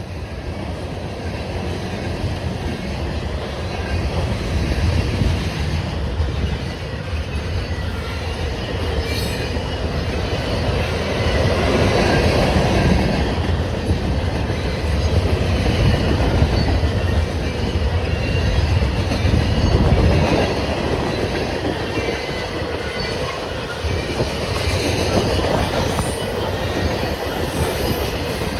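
A Canadian National grain train rolling past at close range: a steady loud rumble of wheels clattering over the rails with some wheel squeal, growing louder over the first few seconds.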